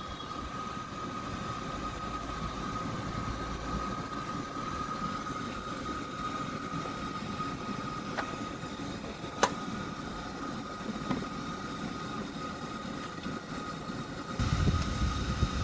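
A small machine running steadily with a high, even whine over a fan-like hiss, with a sharp click about nine and a half seconds in; a louder rumble comes in near the end.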